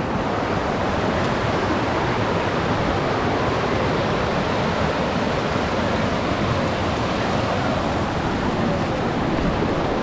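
Mountain river rushing over boulders in a small cascade: a steady, even rush of white water.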